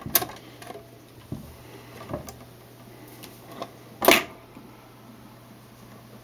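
Clicks and knocks from handling a vintage console record changer, over a steady low hum. A louder clunk comes about four seconds in.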